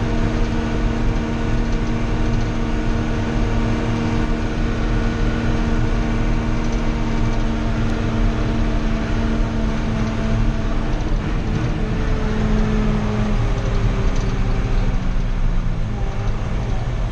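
Old John Deere tractor's engine running steadily while the tractor is driven along a dirt road, heard from inside the cab. The engine note drops a little about twelve seconds in.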